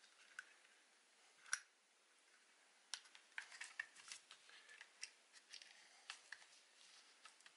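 Faint, light clicks of small shaver parts being handled as the clip holding the trimmer of an Agidel electric shaver is worked off: one sharp click about a second and a half in, then a run of quick, irregular clicks from about three seconds.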